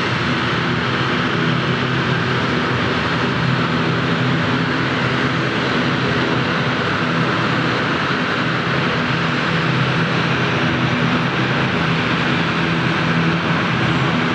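Embraer 190SR airliner on approach to land, its twin GE CF34-10E turbofan engines giving a steady jet rush with a low drone underneath.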